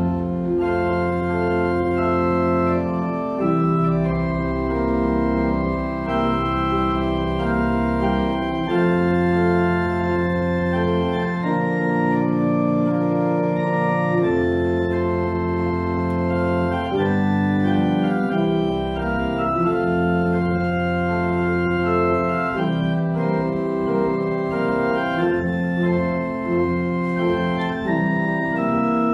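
Organ music: sustained chords over held low pedal notes that change every few seconds, played as the closing music of the service.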